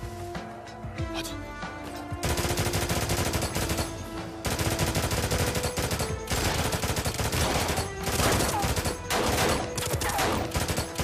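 Film-scene music, then about two seconds in, long bursts of rapid automatic rifle fire that continue with short breaks over the music.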